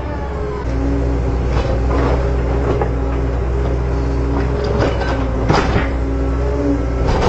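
Huina RC excavator's small electric motors whirring as the boom and bucket move, with short scrapes and knocks as the bucket digs into loose soil.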